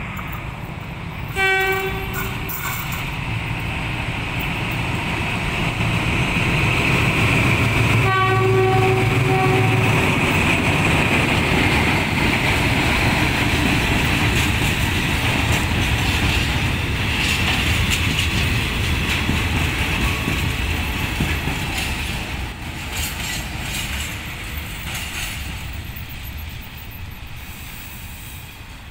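KTM Class 24 diesel locomotive hauling a ballast train sounds its horn twice, a short blast and then a longer one, as it approaches. The engine rumble and the noise of the wagons build as the train passes close by, then slowly fade near the end.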